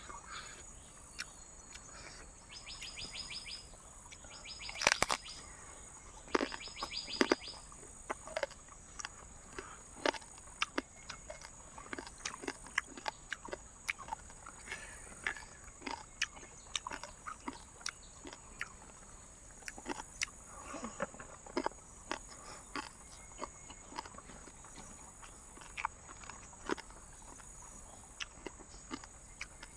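Night insects in jungle, a steady high-pitched drone with a few short rattling trills. Frequent sharp clicks and crackles run through it, the loudest about five seconds in.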